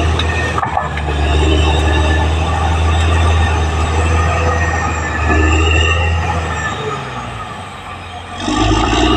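Caterpillar D6R XL bulldozer working: the diesel engine runs under load with a high squealing from the running gear over the low engine note. The engine eases off about seven seconds in and builds again about a second later.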